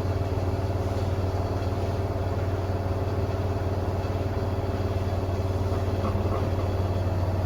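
Front-loading washer-dryer drum spinning at high speed in the spin cycle, a steady hum. The load is well balanced and the drum runs without wobbling.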